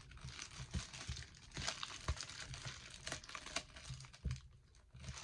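Thin clear plastic bag crinkling and rustling as it is handled, in irregular small crackles.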